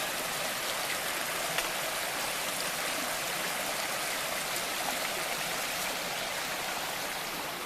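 Mountain creek running high after rain: a steady rush of flowing water.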